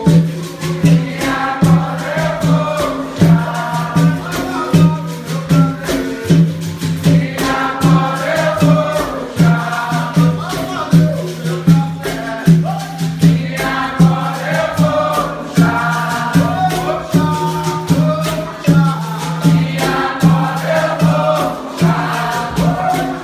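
Capoeira Angola roda music: berimbaus, pandeiros and a drum play a steady, evenly pulsing rhythm, with rattling throughout, under a group of voices singing.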